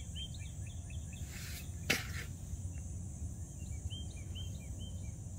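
Outdoor ambience of insects droning steadily at a high pitch, with a small songbird singing a quick series of short chirps at the start and again about four seconds in. A single sharp click sounds just before two seconds in, over a low rumble.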